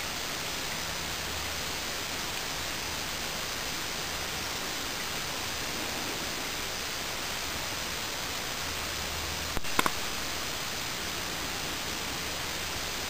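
Steady, even hiss of background noise with no distinct sound in it, broken by a couple of brief clicks about ten seconds in.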